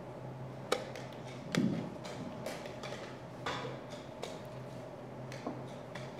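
Scattered sharp clicks and knocks of wooden chess pieces being set down and chess clocks being pressed in a blitz tournament hall, one heavier knock about a second and a half in, over a steady low hum of the hall.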